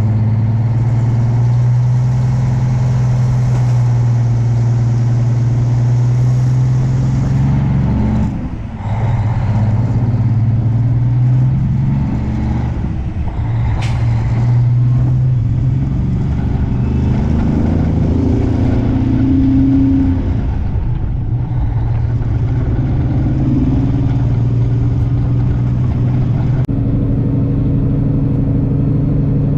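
Semi truck's diesel engine running, its pitch changing several times. There is a brief drop in level about eight seconds in.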